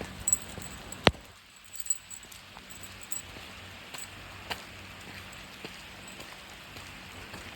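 Steady rain with scattered drops ticking and tapping on a hard surface, one sharp tap louder than the rest about a second in.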